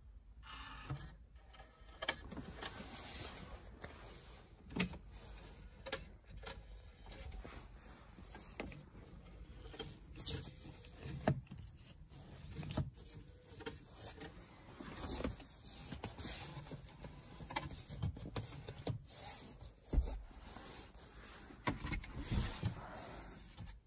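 Scattered clicks and short rubbing sounds from a BMW E65 7 Series cabin's plastic interior fittings being worked by hand, such as the sun visor's vanity mirror cover being slid and the headliner fittings being pressed.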